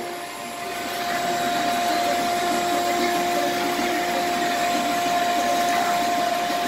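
Craftsman 5.0 peak HP wet/dry shop vac running, a steady motor whine over air rushing through its hose. It builds a little over the first second, then holds steady.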